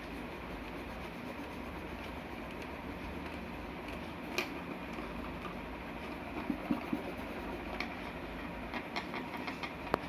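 Sketch pen rubbing on paper while colouring in, with a few light taps, over a steady background hiss.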